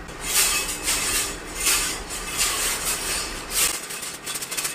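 Repeated rasping scrapes by hand: about six strokes at an even pace, a little over half a second apart, then a run of quicker, lighter strokes near the end.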